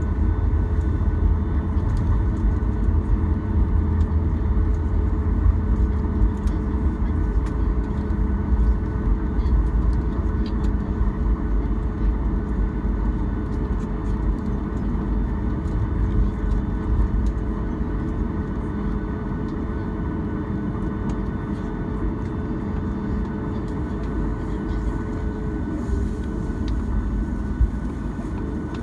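Cabin noise of a Boeing 737 taxiing after landing: a steady hum of the engines at low power with a few steady tones over a deep rumble. The rumble eases slightly in the second half.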